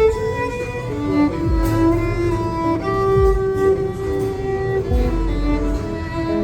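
Lothar Semmlinger wooden violin, amplified through a pickup and wireless system, playing a slow melody of long held notes over a backing track with deep bass.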